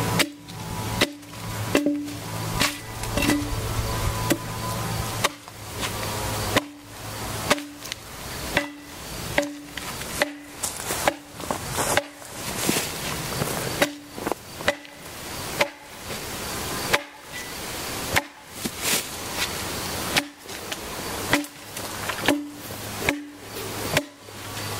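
A broad-bladed hewing axe (the "sù") squaring a felled log, its arched blade chopping into the wood in a steady rhythm of about one blow a second.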